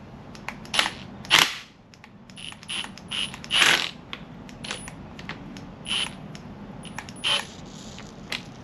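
Metal tools and parts clinking and rattling against each other in a dozen or so irregular sharp clinks, some with a bright metallic ring.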